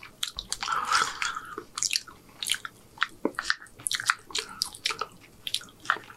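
Close-miked chewing with wet mouth clicks, alongside a knife and fork cutting hamburger steak on a ceramic plate. It comes as a string of short, irregular clicks, with a denser stretch about a second in.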